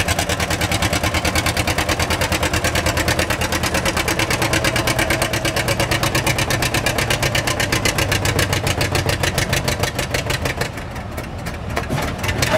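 Antique two-cylinder John Deere tractor engine pulling a weight-transfer sled under heavy load, its exhaust beating in a steady rapid pulse. About ten and a half seconds in it drops off and runs more quietly as the pull ends.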